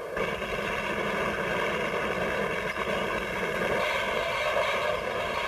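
Glass bottle factory machinery running: a steady mechanical noise from the bottle machines and conveyor.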